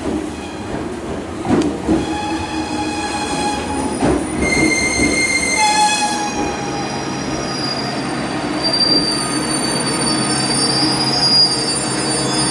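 JR 211 series 5000 electric commuter train running in along a station platform and braking to a stop: a steady rumble of wheels on rail under several high, shifting squeals, with a few knocks from the rail joints in the first few seconds.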